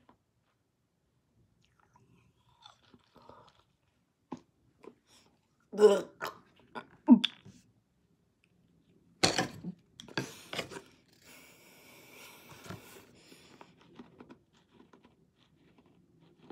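A person chewing and crunching Bottle Caps and SweeTarts candy, with scattered small mouth clicks and a few louder sharp crunches in the middle.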